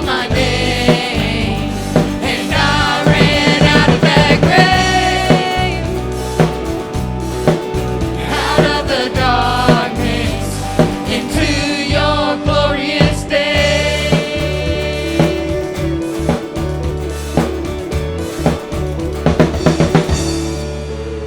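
Contemporary worship song between sung lines: full band with a drum kit keeping a steady beat, bass, and a melodic lead line that bends up and down above it.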